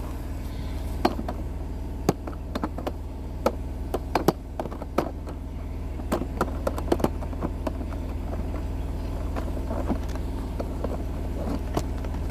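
Engine running steadily at idle, with scattered sharp clicks and knocks, most of them in the first half.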